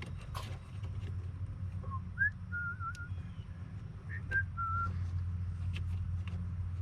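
A person whistling a handful of short notes, one wavering, over a steady low hum, with a few brief clicks.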